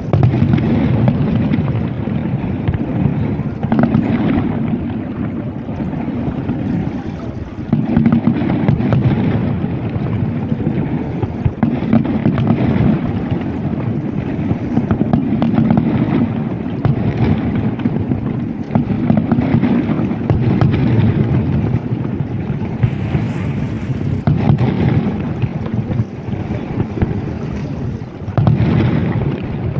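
Fireworks going off in a series of booms a few seconds apart, each swelling suddenly and fading, over a steady low rumble of wind on the microphone.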